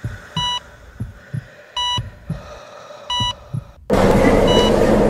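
A hospital heart monitor beeps steadily, a short high beep about every second and a half, with low heartbeat thumps underneath. Near the end a loud, dense steady noise with a low hum cuts in suddenly, and fainter, higher beeps carry on over it.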